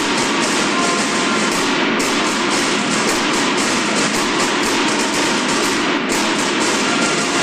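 Marching snare drums of a banda de guerra playing a fast, continuous cadence together, echoing in a gymnasium, with brief breaks about two seconds in and near six seconds.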